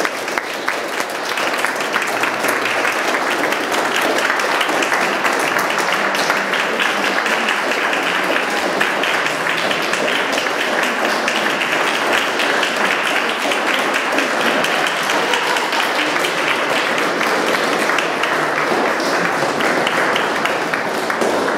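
Audience applauding, many people clapping steadily throughout.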